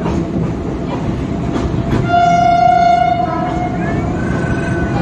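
Train running along the track with a steady rumble and a few clicks over rail joints. About two seconds in, a train horn sounds one steady note for about a second, followed by fainter wavering high tones.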